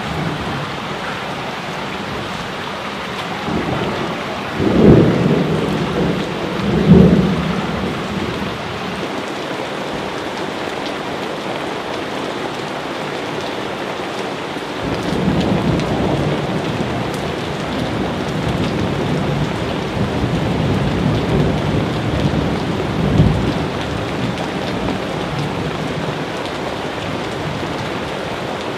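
Steady heavy rain with thunder: two loud rumbles about five and seven seconds in, then a longer rolling rumble from about fifteen seconds that peaks with a louder crack near twenty-three seconds.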